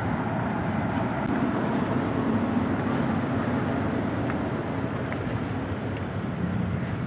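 Steady low rumble of ship engines running at a ferry dock, unbroken and even.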